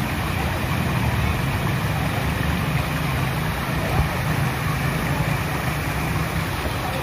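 Road traffic: a motor vehicle engine running steadily as a low hum over a constant rushing background.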